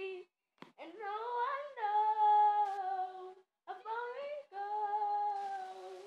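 A young girl singing or humming in long held notes, in several phrases broken by short pauses.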